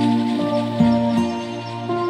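Soft instrumental background music: held notes that move to a new chord every half second or so.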